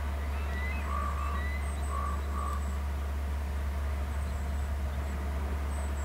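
Steady low electrical hum from the webcam's microphone, with a few faint short bird call notes in the first half and thin high chirps scattered through the rest.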